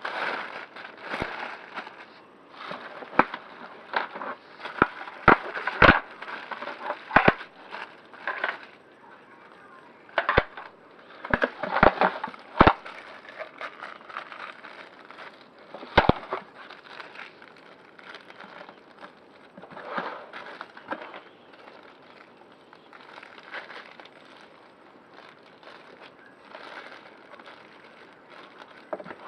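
Packaging being handled while a vacuum cleaner is unboxed: crackling and rustling, with scattered sharp knocks and clicks, most of them in the first half.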